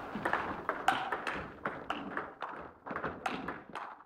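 Table tennis rally: the celluloid ball clicking off the bats and the table in a quick, irregular run of sharp taps.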